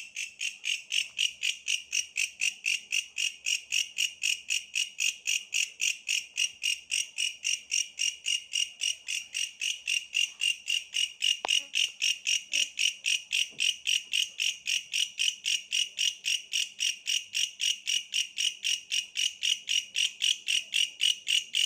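A katydid (tree grasshopper) calling: a steady, even train of short, high chirps, about four a second.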